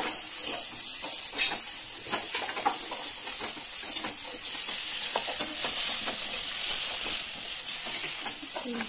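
Sliced onions sizzling in hot oil in a pan while a wooden spatula stirs them, with a steady hiss and light taps of the spatula against the pan. There is one sharper click about a second and a half in.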